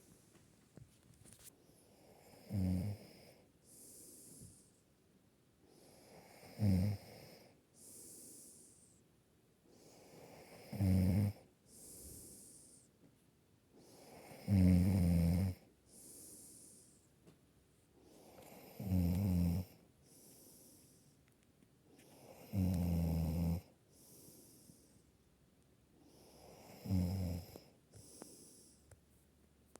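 A sleeping person snoring: a low buzzing snore about every four seconds, seven in all, each followed by a softer breathy hiss.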